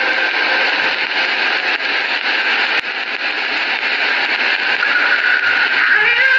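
Steady hiss of an old, band-limited recording of the azan between the muezzin's phrases, with a single click near the middle. A held note of the muezzin's voice fades about a second in, and his voice starts the next phrase near the end.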